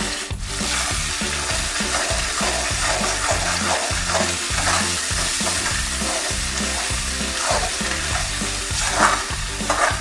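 Onion-tomato masala paste sizzling in hot oil in a metal kadhai while a steel spoon stirs and scrapes it around the pan, with an irregular scraping under a steady sizzle. The masala is being fried (bhuna) with its spices.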